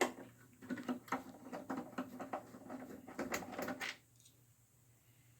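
Irregular light clicks and clatter of small metal screws and tools being handled on a workbench. The clicking stops about four seconds in.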